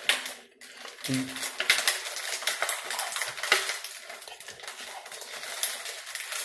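Crinkling and crackling of the plastic inner wrapper of an Oreo cookie package as it is pulled open by hand, in quick, irregular bursts.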